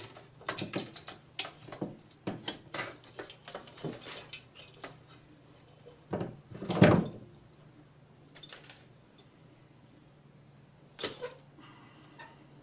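Wires and hand tools being handled on a countertop: a run of small clicks and rattles, a louder knock about seven seconds in, and another short clatter about eleven seconds in.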